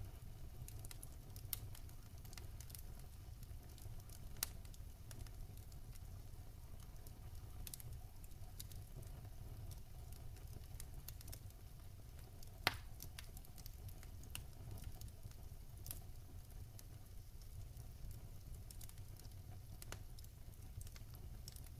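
Fire crackling: irregular sharp pops and clicks scattered over a steady low rumble, with one louder pop a little past halfway.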